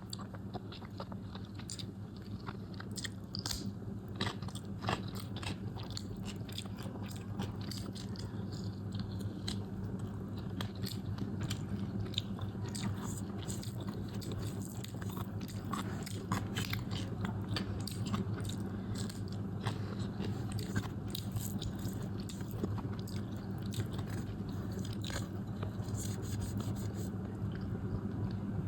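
A person eating hot rice with jara lemon close to the microphone: continuous chewing and biting, with many short wet clicks and smacks, over a steady low hum.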